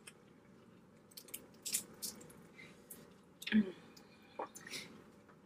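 Wet chewing and lip-smacking of people eating boiled seafood: a string of short, scattered smacks and clicks, the loudest about three and a half seconds in.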